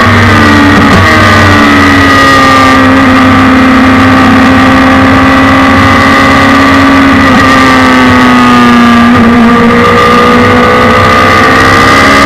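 Suzuki Hayabusa inline-four motorcycle engine in a race car, heard onboard, running loud at speed through an Akrapovic exhaust. The revs sink slowly through a long corner, change about nine seconds in, then climb again.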